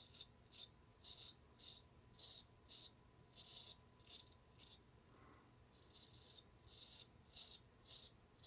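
Straight razor scraping through two days' stubble on a lathered face: faint, short strokes about two a second, with a pause of a second or so near the middle.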